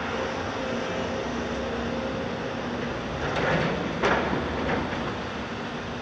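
Tracked demolition excavators running with a steady diesel hum, the Volvo's hydraulics working as it slews and lifts its boom. A little over three seconds in comes a rising scraping crunch of concrete rubble, then a sharp clank about four seconds in and a lighter knock just after.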